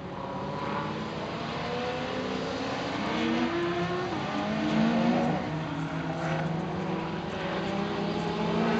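Track-day sports cars' engines running hard on the circuit, their pitch climbing, then dropping back at each gear change, growing louder as the cars come closer.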